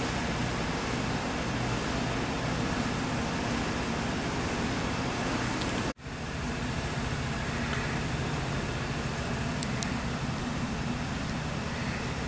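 Steady rushing noise with a low hum, cutting out for an instant about six seconds in, with a few faint ticks near the end.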